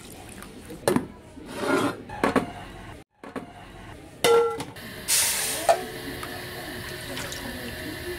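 Coconut milk is poured from a glass bowl onto glutinous rice in a steel saucepan, splashing unevenly. After that comes a short ringing clink as a glass lid meets the pot, and then a hiss that starts loud and settles into a steady hiss.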